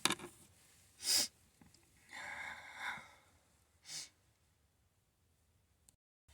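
A person sniffing and breathing during a sneezing fit: a sharp sniff about a second in, a longer breathy gasp around two to three seconds, and another short sniff near four seconds.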